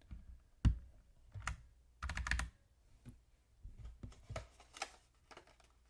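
Scattered plastic clicks and clacks at a budget mechanical keyboard as keys and a novelty keycap are handled and pressed, irregularly spaced with a sharper clack about a second in.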